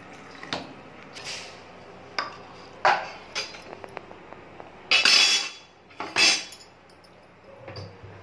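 Stainless steel kitchen vessels being handled: a string of separate clinks and knocks, the longest and loudest about five seconds in and another about six seconds in.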